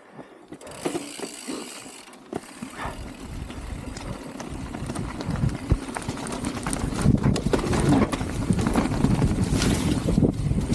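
Mountain bike rolling off and gathering speed down a muddy trail: tyres on dirt and the bike rattling and clattering over bumps, growing steadily louder.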